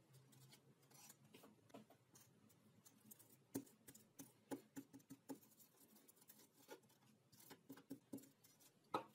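Faint handling sounds: scattered light taps, clicks and rustles of a glass strip and a strip of sandpaper being set down and pressed on a wooden tabletop. The sharpest clicks come about three and a half seconds in and near the end.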